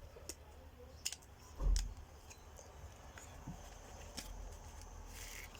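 Plastic cards clicking and sliding as a stack of eight is worked into a leather wallet's card slot: scattered light clicks, with a soft thump about a second and a half in.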